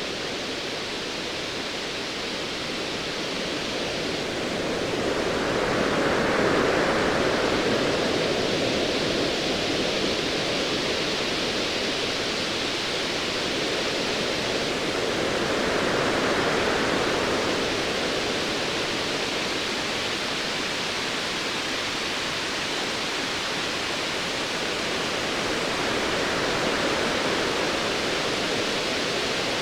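Ocean waves: a steady rushing wash that swells and eases roughly every ten seconds.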